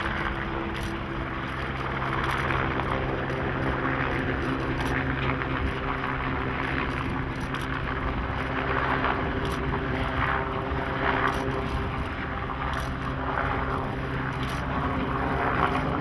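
C11 steam locomotive working hard up a grade, its exhaust chuffing in slow, irregular beats about once a second over a steady low drone.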